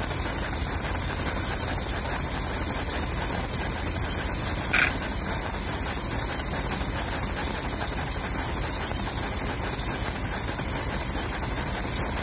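Engine running with its serpentine drive belt squealing steadily at a high pitch: the belt is slipping on its pulleys, which the owner puts down to hardened rubber in the belt's inner grooves.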